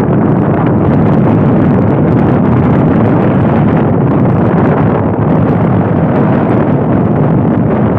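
Heavy wind buffeting the microphone over the steady noise of a boat moving over the water, loud and unbroken throughout.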